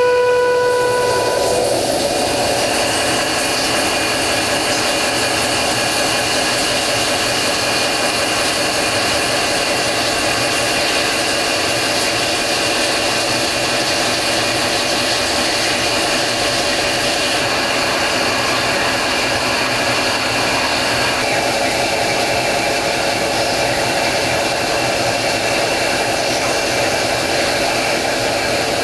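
DN Solutions SMX 3100ST lathe drilling 6Al-4V titanium with a 2-inch Kennametal DFSP indexable drill under flood coolant: a steady machining whine over the hiss of spraying coolant. A brief pitched tone sounds in the first second or two, and the whine shifts slightly about twenty seconds in.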